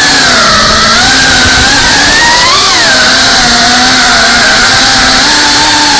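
GEPRC Cinelog 35 FPV drone's four brushless motors and propellers buzzing loudly in flight, their pitch dipping and rising with the throttle and sweeping up briefly about two and a half seconds in, over a steady hiss.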